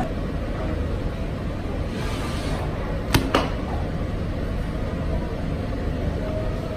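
A butcher's knife and a bone-in beef rib roast handled on a counter: a brief swish, then two sharp knocks about three seconds in, over steady low background noise.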